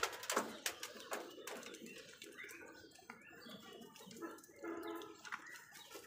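House crows pecking at food in a plastic bowl, a run of sharp taps in the first second or so. About four to five seconds in comes a short bird call of a few notes.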